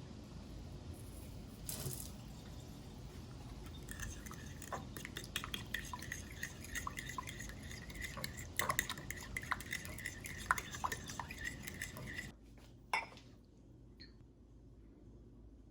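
Utensils and dishes clinking in a kitchen, with a steady high-pitched running sound joining about four seconds in and cutting off suddenly a few seconds before the end, followed by a single knock.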